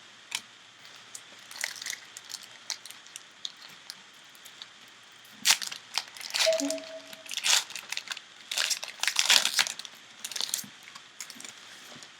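Foil trading-card pack wrapper being crinkled and torn open, in irregular bursts of crackling rustle that are sparse at first and busiest in the second half.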